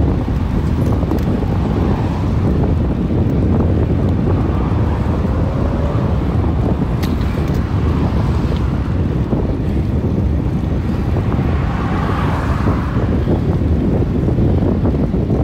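Wind buffeting the microphone while riding a road bike at about 13 mph: a loud, steady rumble.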